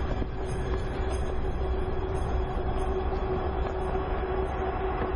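Freight train running on a rail line: a steady rumble and rush with a constant humming tone.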